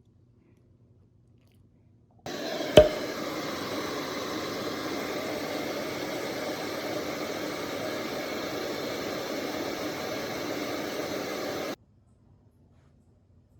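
Steady, even rushing noise that starts and stops abruptly and lasts about nine seconds, with one sharp click just after it begins.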